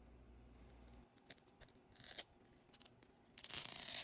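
Small clicks from handling a plastic toy capsule, then a louder stretch of crinkling and tearing as plastic packaging is torn open, starting about three and a half seconds in.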